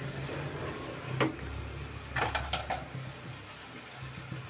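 Wooden spatula scraping and knocking against a pan while stirring thick carrot halwa, with a sharp knock about a second in and a quick cluster of knocks about two seconds in, over a steady low hum.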